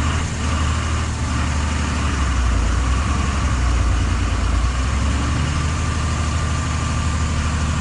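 A truck engine idling steadily over a constant hiss, its note shifting slightly about five seconds in.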